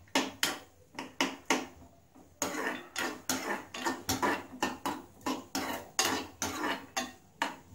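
A steel spoon stirring cashews in a small steel kadai, scraping and knocking on the pan about three times a second, with a short pause about two seconds in.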